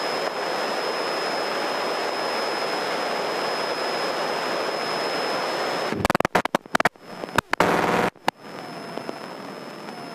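Steady rushing cabin noise of a single-engine propeller airplane in flight, with a thin steady high whine. About six seconds in, roughly two seconds of choppy crackling and cut-outs break in, and the rushing noise then goes on quieter.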